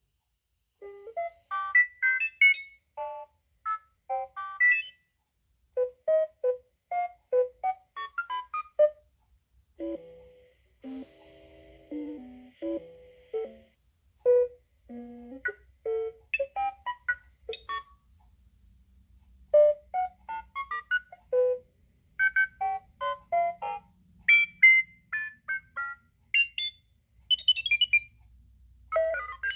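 Astromech droid sound effects from a Droid Depot blue personality chip: phrases of quick electronic beeps, chirps and whistles that slide up and down in pitch, R2-D2 style, with short pauses between phrases and a lower warbling run partway through.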